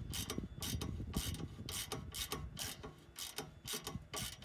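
Hand socket ratchet clicking in short repeated strokes, about two a second, as the spring-loaded bolts on an exhaust flexi-pipe flange joint are wound up.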